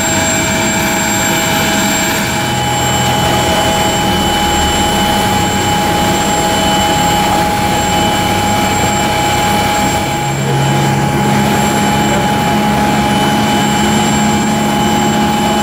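Steady jet-turbine whine over a loud rushing noise on an airport apron, several high tones held level. About ten seconds in the loudness dips briefly and a low hum changes pitch.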